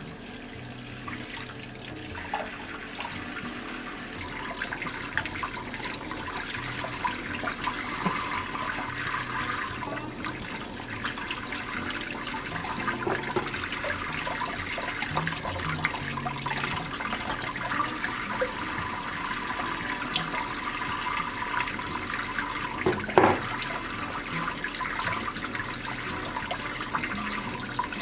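Kitchen tap running steadily, its stream splashing onto raw chicken pieces and into a stainless steel sink as hands rinse the meat. One sharp knock a few seconds before the end.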